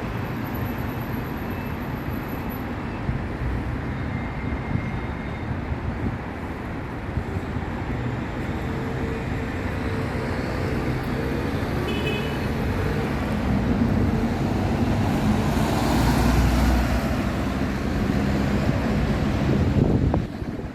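Steady rumble of road vehicles and traffic, swelling louder for a few seconds toward the end.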